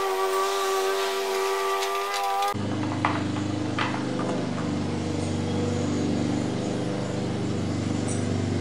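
A steady hum made of several held pitches, like a machine running in the workshop. It changes abruptly to a lower-pitched hum about two and a half seconds in, and two light clicks of hand-tool work on the scooter's panel fasteners follow soon after.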